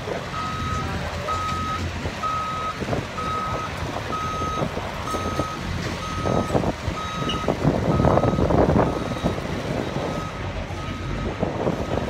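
Vehicle backup alarm beeping steadily, about one beep a second, over a low engine rumble that grows louder around eight seconds in.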